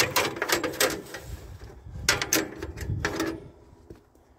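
Steel band blade of a Woodland Mills HM122 bandsaw mill being pulled off its wheels by hand for a blade change, rattling and clinking against the wheels and guides in two spells of clatter.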